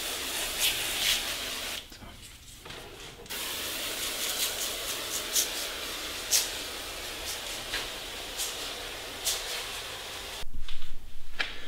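Hand pump pressure sprayer spraying a fine jet of water from its lance onto a bare masonry door reveal, wetting it before plastering: a steady hiss that stops briefly about two seconds in and then runs on. Near the end the hiss stops and a few low thumps follow.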